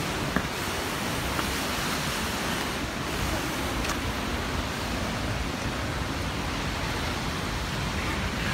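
Steady rushing of a waterfall, with a few faint clicks.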